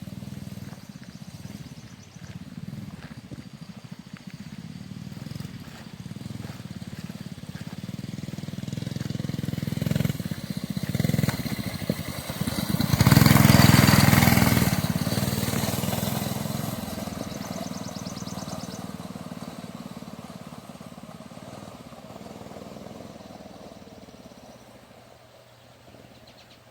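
Mini bike's 6 hp single-cylinder engine running under throttle as the bike rides up and past, loudest about halfway through, then fading away into the distance.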